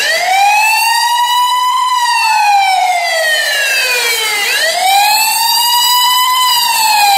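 Siren wail, a siren sound effect in the dance music: it cuts in abruptly and rises and falls slowly twice.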